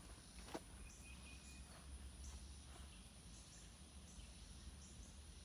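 Near silence: faint outdoor ambience with insects chirping in short repeated bursts over a steady high hum, and a single click about half a second in.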